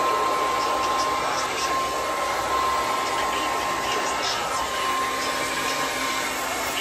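Handheld hair dryer running steadily, blowing on a section of hair: an even rush of air with a thin steady whine.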